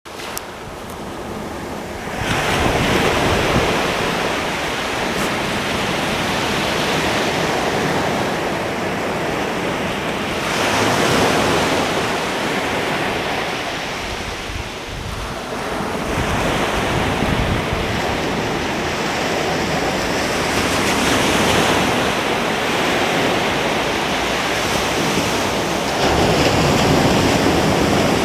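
Ocean surf breaking and washing up a beach: a steady rush of water that swells as each wave breaks, every several seconds.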